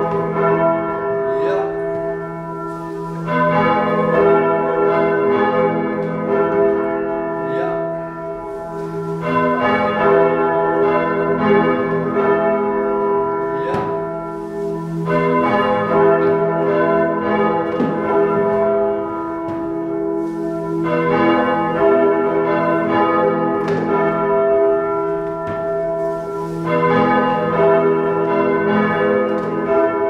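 Church bells rung by hand with ropes, several bells swinging and striking together so that their tones overlap and hang on. The strikes come in swells that return about every six seconds.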